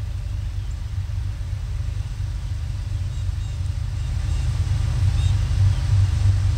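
Low rumble of an approaching freight train's diesel locomotives, growing louder from about four seconds in.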